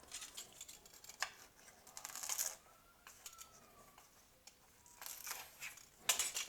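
Fresh guava leaves being folded and cut by hand: short bouts of crisp crackling and rustling of leaf, a few separate bursts with quiet between them.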